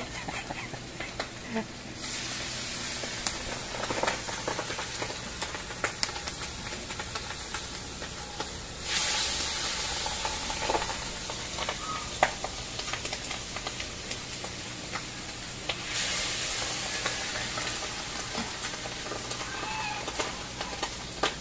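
Pork head frying in a large steel wok, a steady sizzle that swells louder a few times, with scattered sharp clicks from the tongs and the crackling wood fire.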